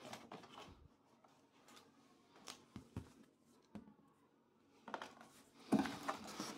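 Cardboard box being opened by hand: scattered light taps and scrapes of the cardboard flaps, then louder rustling of cardboard and plastic packing near the end as a hand reaches into the box.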